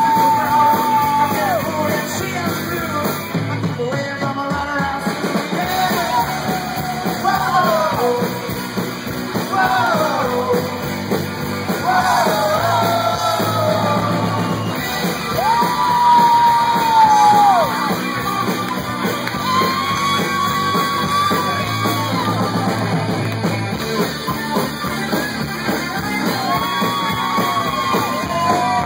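Rock band playing with a singer yelling and singing long held notes that bend in pitch.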